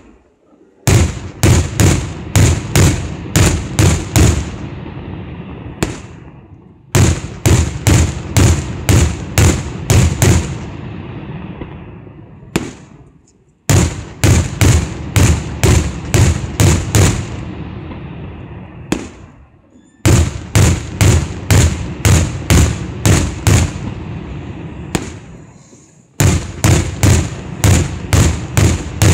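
Fireworks display: aerial shells going off in five volleys, each a rapid string of about eight or nine sharp bangs over three to four seconds that then dies away, a new volley starting every six or seven seconds.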